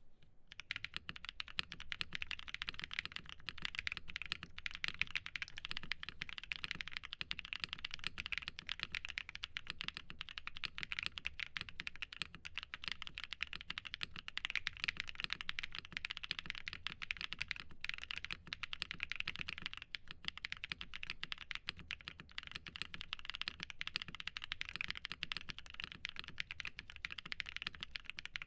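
Continuous typing on a KBDFans TET full-aluminium mechanical keyboard with lubed and filmed Holy Panda tactile switches, GMK keycaps and no foam in the case. It starts about half a second in as a dense, steady run of key clicks.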